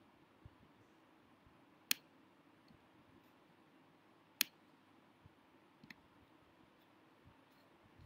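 Two sharp clicks about two and a half seconds apart, with a few fainter ticks, over quiet room tone.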